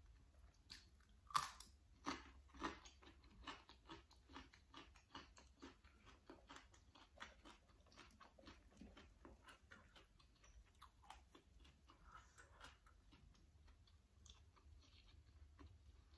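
Close-up chewing of raw crunchy vegetable, a bite followed by a run of faint moist crunches about three a second. The loudest crunch comes about a second and a half in.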